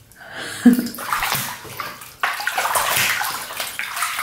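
Bath water sloshing and splashing around a person sitting in a bathtub, with a sudden splash about two-thirds of a second in and livelier sloshing from a little after two seconds.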